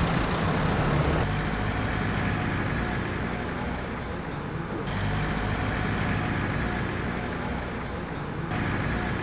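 Motor vehicles running on a road: a steady engine hum with road noise as cars and a van pass and idle nearby. The sound changes abruptly about a second in, around five seconds and again near the end.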